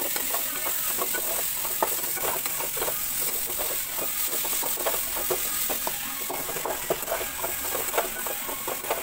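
Metal spatula scraping and clinking against a metal kadai, a few strokes a second, as dried fish and onions are stirred while frying, over a steady sizzle.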